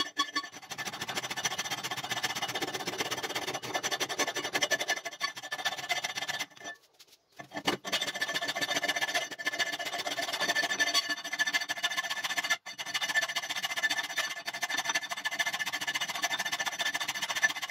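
Hand file rasping back and forth along the edge of a steel axe head cut from an old circular saw blade, clamped in a vise. The thin saw-blade steel rings with steady high squealing tones under the file. The filing stops for about a second partway through and again briefly later.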